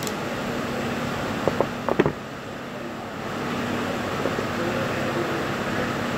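A ratcheting wire crimper clicking and knocking as it is handled at a wooden workbench, with four sharp clicks about one and a half to two seconds in, over a steady background hum.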